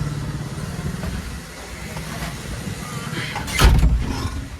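Diesel engine of a JCB 3DX backhoe loader running with a steady low chug. A heavy metallic thud comes about three and a half seconds in.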